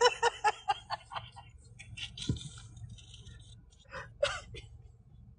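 A woman's high-pitched laugh in quick squeaky pulses, likened to a parrot's call, dying away over about the first second, with a couple of short gasping bursts about four seconds in.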